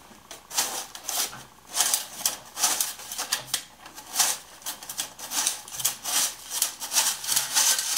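Tin flour sifter being worked by hand, its wire agitator rasping against the mesh in quick, regular strokes, about two to three a second, as flour sifts into a pot.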